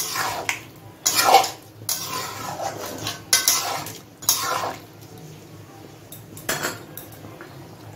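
Spatula stirring a thick curry in a metal kadai, scraping and knocking against the pan in repeated strokes, then stopping a little past halfway, with one more short knock shortly after.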